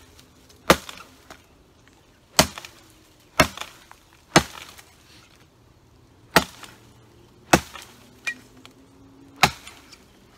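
Metal head of a FiveJoy survival shovel chopping into a log: seven hard strikes at uneven intervals of one to two seconds, plus one lighter knock.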